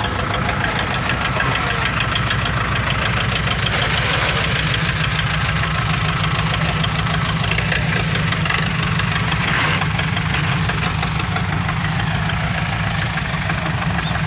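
A vehicle engine running steadily with a fast, even clatter.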